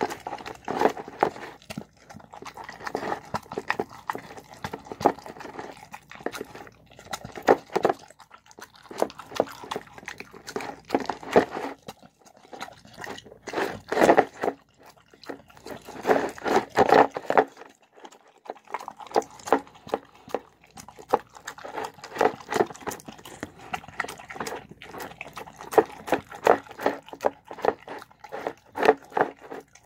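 A dog eating soft, wet food (shredded chicken with rice and vegetables): quick, irregular chewing and wet smacking of the mouth, with a couple of brief pauses.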